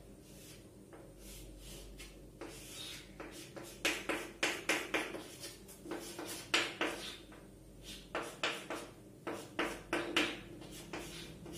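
Chalk writing on a chalkboard: short scratchy strokes and taps, sparse at first, then in quick runs from about four seconds in.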